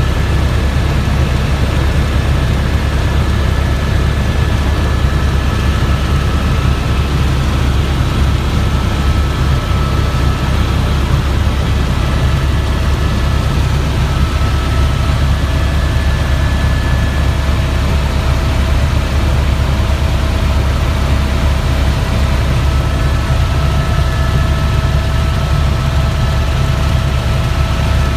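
Helicopter in flight: a loud, steady low drone of rotor and engine, with a faint steady high whine.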